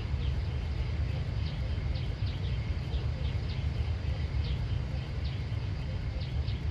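Outdoor ambience: a steady low rumble with short, high, quickly falling chirps repeating one to two times a second.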